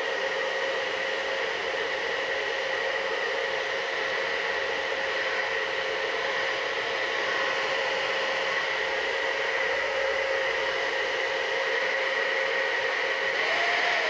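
UNIKARA ionic hair dryer running steadily with an ocean-wave bowl diffuser attachment, blowing into wet hair: a constant rush of air with a steady whine through it. Its pitch rises slightly near the end.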